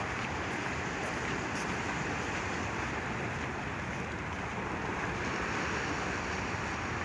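Sea waves washing steadily, an even rushing with no distinct breaks.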